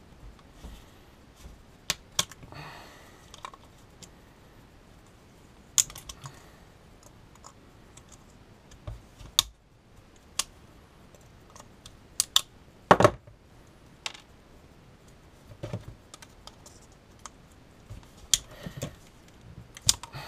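Pliers snipping and prying apart an oil pressure sensor's small metal and plastic parts: irregular sharp clicks and snaps, the loudest about 13 seconds in.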